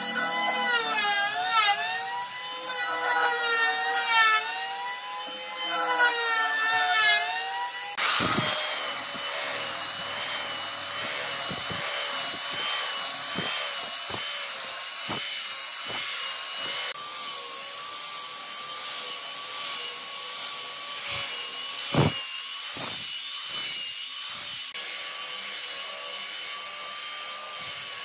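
An electric hand planer runs for the first several seconds, its motor pitch sagging and rising as it cuts and frees up. Then a handheld belt sander starts and runs steadily over a hardwood slab, with scattered knocks as it is shifted and set down. One sharper knock comes late on.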